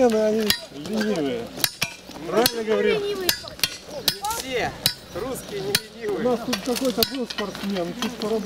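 Hand tamper and rake striking and scraping crushed-stone gravel: irregular sharp clinks and crunches, several a second, with indistinct voices talking underneath.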